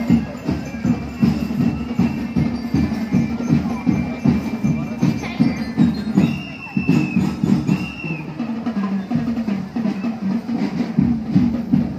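High school marching band's drums playing a steady quick beat on bass and snare drums, about four strokes a second. Two short high held tones come in about six and eight seconds in.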